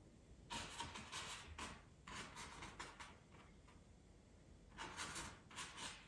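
Paintbrush dabbing and scrubbing oil paint onto canvas: faint, short brushing strokes, several in the first half and a few more near the end.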